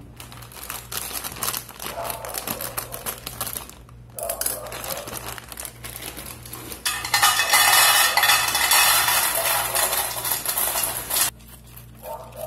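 Dry bow-tie pasta poured from its plastic bag into an aluminium pressure cooker: a dense rattle of hard pieces hitting metal, the loudest part, lasting about four seconds in the second half and stopping abruptly. Before it, bag crinkling and scattered clinks as the bag is opened and handled.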